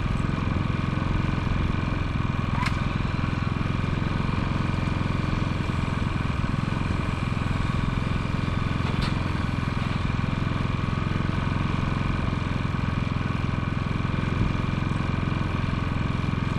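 An engine running steadily at one constant speed, with two sharp clicks about six seconds apart.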